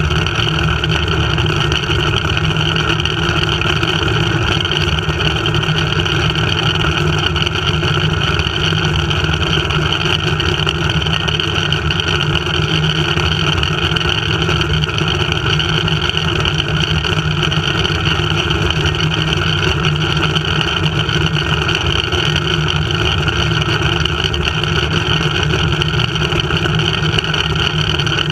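Flying fox zipline ride heard from the rider frame: a steady, loud rushing and rumbling of air and the trolley running along the cable, with no change in pitch or level.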